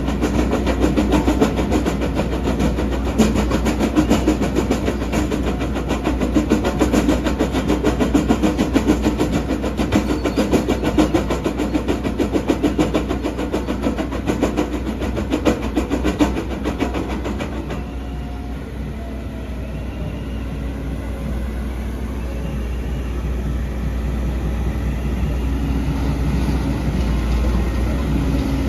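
Volvo EC210DL excavator with an MB bucket running, with dense rattling that eases off about two-thirds of the way through, leaving a steadier, quieter machine hum.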